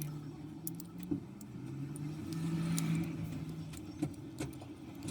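A low motor hum that shifts in pitch now and then, with a few light clicks and taps over it.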